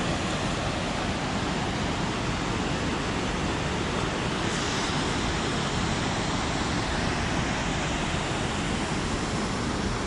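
Steady rushing of a mountain river over rocky rapids.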